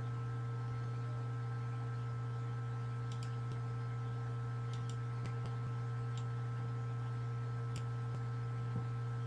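A few faint computer mouse clicks, scattered and irregular, over a steady low electrical hum.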